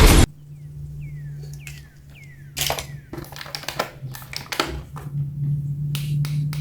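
Plastic toy and packaging being handled: a run of sharp clicks and taps, with a few short falling squeaks early on, over a steady low hum.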